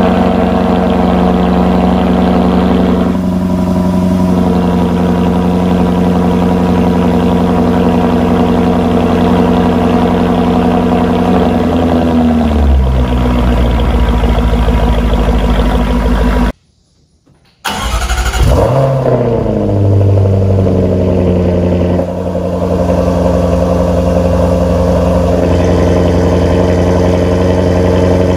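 Jaguar XKR-S GT's 5.0-litre supercharged V8 idling high through its quad exhausts after a cold start; the idle steps down lower about twelve seconds in. After a brief break, a Jaguar XE SV Project 8's 5.0-litre supercharged V8 fires cold with a short rev flare, then settles into a steady idle.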